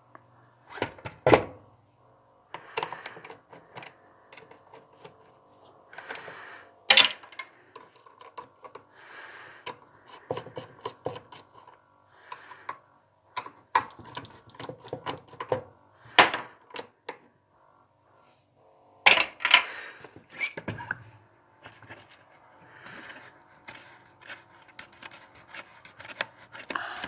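Irregular clicks, taps and knocks of hard plastic and tools being handled on a car headlight assembly, with a few louder knocks among the lighter ticking.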